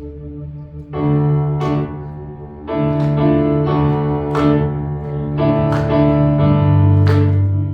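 Instrumental worship music: a keyboard playing sustained chords over a held low note. New chords come in about a second in and then every couple of seconds, and the sound grows fuller toward the end.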